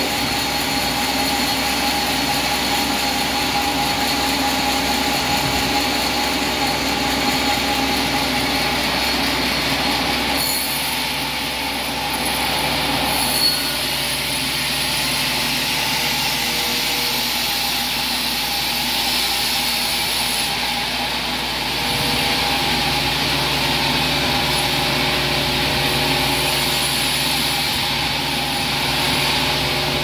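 Large vertical band sawmill running continuously while a red oak log is fed through the blade. It is a steady mechanical drone and hiss, and its tone changes about a third of the way in and again about two thirds of the way through.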